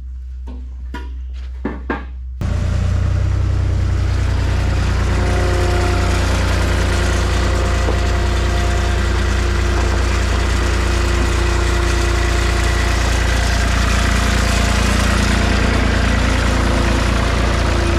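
An engine running steadily, coming in suddenly and loud about two seconds in; before that a low steady hum with a few knocks.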